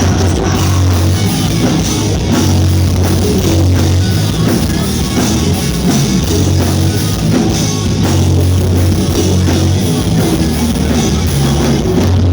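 Loud live rock band playing, with drums, distorted guitars and heavy bass and a steady beat, recorded from the audience so the sound is dense and overloaded.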